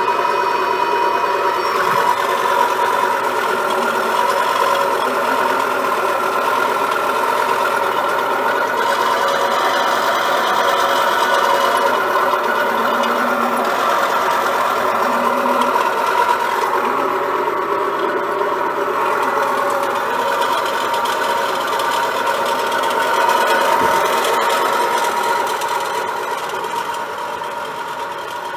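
Current CT300 CNC EDM drill running under power, giving a steady mechanical hum and buzz with a high steady whine. It fades slightly near the end.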